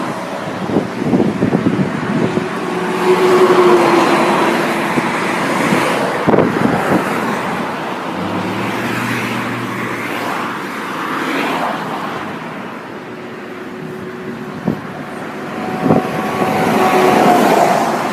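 Road traffic: vehicles driving past one after another, engines running and tyre noise rising and falling.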